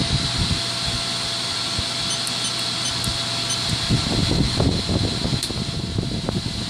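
Steady whir of a running fan with a faint steady whine. A few soft knocks and handling sounds come past the middle.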